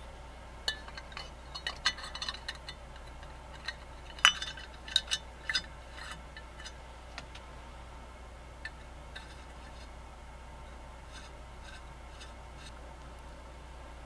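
Small metal carburetor parts clicking and clinking against each other as a Stromberg 97 carburetor's float and hinge pin are fitted into its body by hand. A quick run of light clicks fills the first half; after that there are only a few faint ticks.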